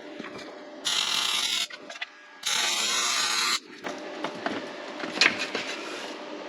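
Two short tack welds on steel plate: the welding arc sizzles for about a second, stops, then sizzles again for just over a second. Light clicks of metal parts being handled follow.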